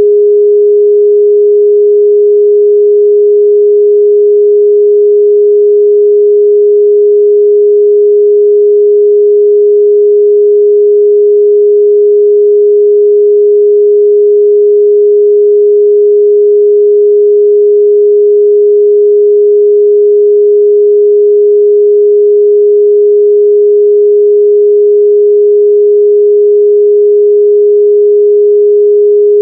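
A pure 414 Hz sine-wave test tone, held steady and unbroken at a constant loud level.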